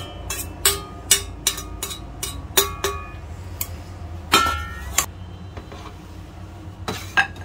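Metal spoon tapping and scraping against an aluminium plate, about two or three sharp clinks a second, as fried anchovies are knocked off it. About four seconds in comes one louder ringing metal clank, then a few lighter clicks of the spoon in a stone mortar.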